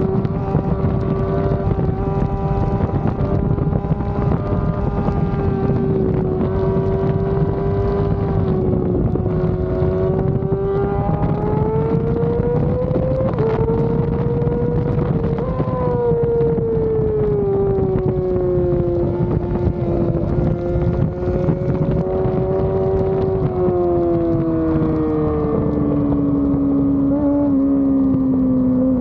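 Yamaha R6's inline-four engine running at high revs under racing load. It holds a high, fairly steady pitch, rises about halfway through, then sinks slowly toward the end.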